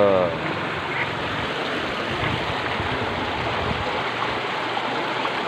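Water running steadily along a narrow concrete drainage ditch, a constant even rush.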